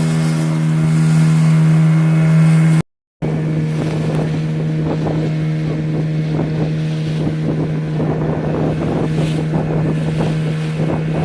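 Motorboat engine running at a steady, even drone. The sound drops out completely for a moment about three seconds in, then carries on unchanged.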